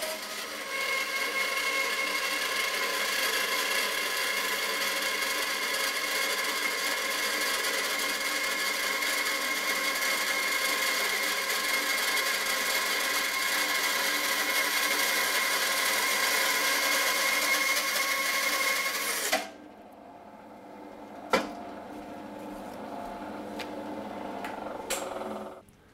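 Record Power BS300E 12-inch bandsaw with a 1 horsepower motor and a 3/8-inch 6 TPI blade resawing a thin veneer off a 5-inch block of silver birch: a steady cutting noise with a high whine for about nineteen seconds. Then the cut finishes and the saw runs on, much quieter. A single knock comes about two seconds later.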